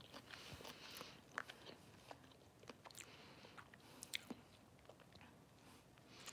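Faint close-up chewing and mouth sounds, with small wet clicks and smacks scattered throughout, a few sharper ones around the middle.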